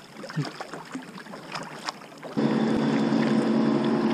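Kayak paddle strokes splashing softly in lake water, then about two and a half seconds in a steady, droning motorboat engine hum sets in abruptly and holds.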